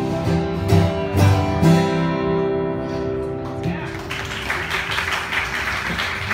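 Two acoustic guitars play the closing strums of a song, the last chord ringing out; about four seconds in, an audience starts applauding.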